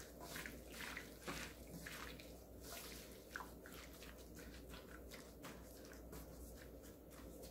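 Gloved hand squeezing and tossing raw pork neck and vegetables in a thick gochujang marinade: faint, soft wet squelches repeating irregularly, more often in the first few seconds.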